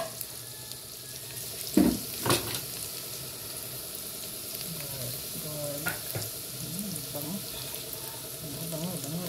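Minced garlic sizzling steadily in hot oil in a nonstick frying pan as it browns toward golden. A fork knocks and scrapes against the pan a few times in the first two or three seconds.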